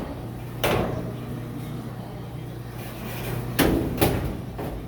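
Knocks and clunks of dryer parts being handled and set in place during reassembly: one knock less than a second in and two close together near the end, over a steady low hum.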